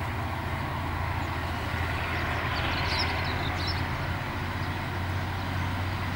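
Two diesel locomotives, a DBR class and a DFB class coupled together, working at full throttle as they pull a train: a steady low engine drone.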